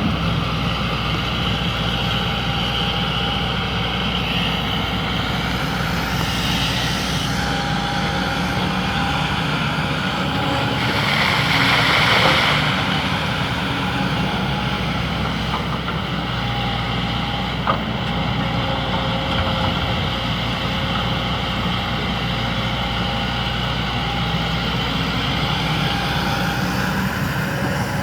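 Excavator's diesel engine running steadily as it works, swelling louder with a hissing surge for a couple of seconds around the middle, with one brief sharp tick later on.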